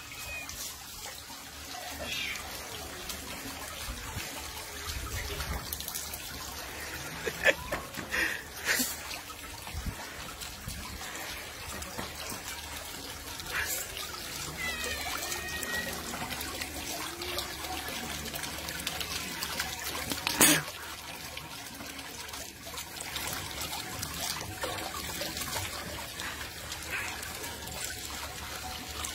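Small stone garden fountain's jet trickling and splashing steadily into its basin. A few sharp clicks or knocks cut through it, the loudest about two-thirds of the way in.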